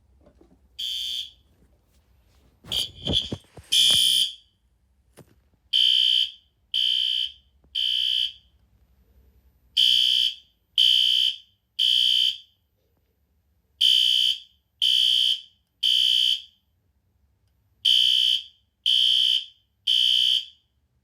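System Sensor SpectrAlert Advance P2R horn/strobe sounding its temporal (code-3) pattern on the low-volume setting. A short beep and a few clicks and stuttering blasts come first. Then it settles into groups of three high horn blasts about a second apart, with a pause between groups.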